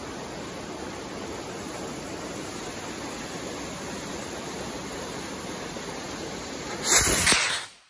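A steady hiss while the fuse burns, then about seven seconds in a loud rushing whoosh lasting under a second as a stick firework rocket's motor ignites and it lifts off the launch rack.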